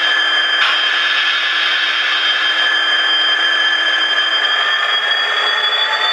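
N gauge Dapol Class 66 model's DCC sound chip playing a recorded Class 66 diesel engine through twin iPad speakers as the model runs, with a steady whine that rises in pitch near the end.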